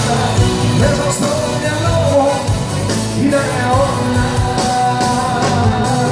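Live band music played loud, with melodic lines over a steady bass and drums.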